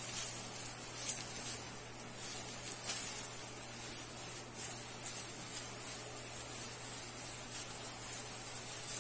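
Plastic tinsel garland rustling and crinkling in light, scattered handfuls as hands fasten bows onto a wire wreath, over a steady high hiss.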